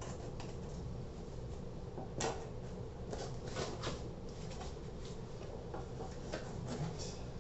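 Shipping package being opened and handled by hand: scattered clicks, scrapes and knocks, one louder knock about two seconds in, over a steady low hum.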